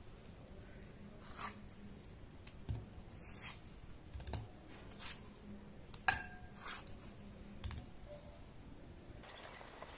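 A knife slicing through tomatoes held in the hand, with the wedges dropping into a glass bowl: a series of soft, irregular clicks and taps, the sharpest about six seconds in with a short ring of glass.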